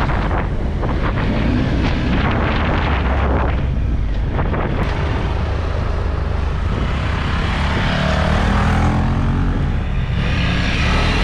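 Triumph Tiger 1200's three-cylinder engine running under way, mixed with wind rushing over the microphone; the engine note rises in pitch over the last few seconds as it accelerates.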